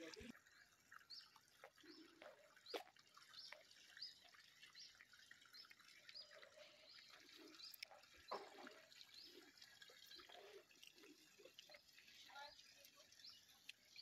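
Near silence: faint outdoor ambience with a soft, short high chirp or plink repeating about twice a second.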